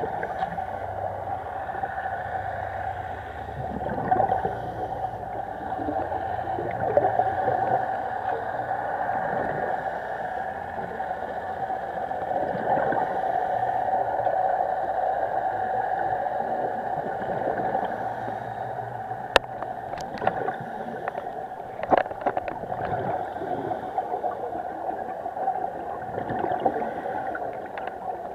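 Muffled underwater ambience picked up by a sport camera inside its waterproof housing: a steady drone with scattered clicks and crackles, a few sharper ones from about two-thirds of the way in.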